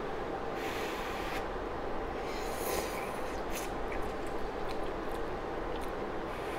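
A person blowing on a forkful of hot noodles to cool them: several short, breathy puffs of air.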